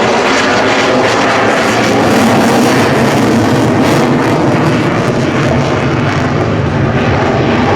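F-16 Fighting Falcon jet engine at full afterburner, a loud, steady rushing noise as the fighter accelerates into a near-vertical climb. It is loudest a couple of seconds in and eases slightly toward the end.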